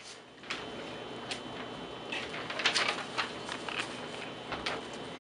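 Room noise with scattered small clicks, knocks and rustles, as of people shifting and handling things, over a faint steady high whine.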